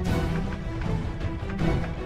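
Background music with a heavy bass and a steady beat.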